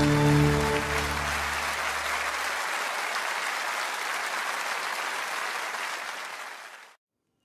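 The held last chord of a worship song dies away over the first couple of seconds, under audience applause. The applause carries on steadily, fades, and cuts off suddenly near the end.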